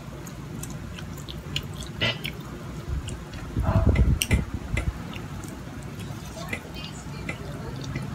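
Eating sounds close to the microphone: scattered small clicks and smacks of chewing and of fingers picking food from a bowl, with a louder low bump about four seconds in.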